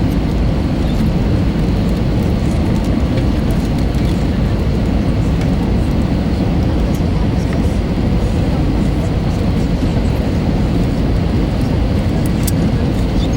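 Steady low rumble inside the cabin of an Airbus A320-214, heard from a window seat over the wing: the noise of its CFM56 engines and the airframe, unchanging throughout.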